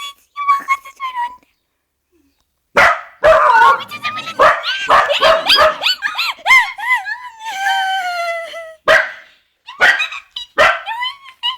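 Rubber squeaky toy squeezed over and over, giving loud high squeaks whose pitch bends up and down. A short run at the start, a pause of about a second and a half, a long dense run, then a few sharp squeaks near the end.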